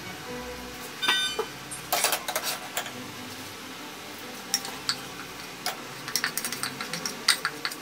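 A stainless steel pan knocks down onto the gas stove's grate with a brief metallic ring about a second in. It is followed by a run of small clicks and clatter as moong dal is tipped from another pan into it.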